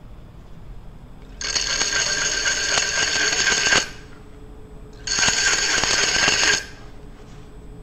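A hand tool held against an aluminum bowl spinning on a wood lathe, in two passes of harsh scraping with high ringing tones through it, the first about two and a half seconds long, the second about one and a half.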